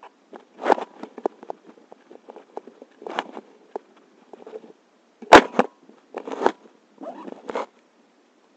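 Paragliding harness fabric and webbing rustling and scraping against the camera, with scattered clicks and a sharp knock a little past five seconds in.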